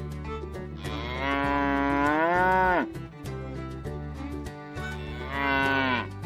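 Cow mooing twice: a long moo about a second in that rises and then falls in pitch, and a shorter moo near the end. Background music with a steady beat runs underneath.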